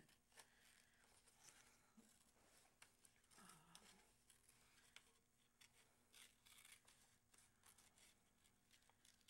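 Scissors snipping through paper: many faint, irregularly spaced snips.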